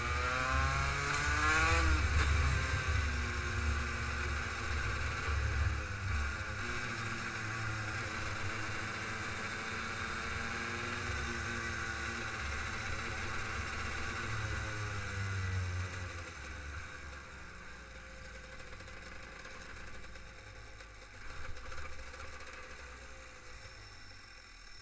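Racing kart engine heard from on board, revving up to a peak about two seconds in and then falling off. It picks up again briefly around fourteen seconds, then the revs drop away and the sound fades as the kart slows down.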